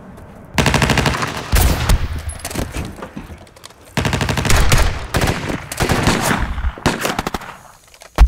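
Automatic rifle fire in rapid bursts: a burst about half a second in, another around a second and a half, and a longer one about four seconds in, with scattered single shots after it that die down near the end.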